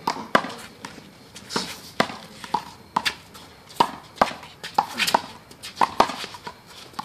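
One-wall handball rally: the small rubber ball is slapped by hand and smacks off the concrete wall and court in a quick run of sharp hits, about two a second.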